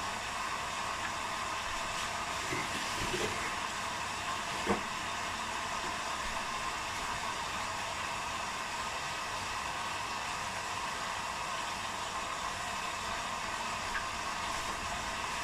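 Two front-loading washing machines, an Arctic and an Electrolux, taking in water through their inlet valves after draining, a steady even hiss of running water, with a faint knock a little under five seconds in.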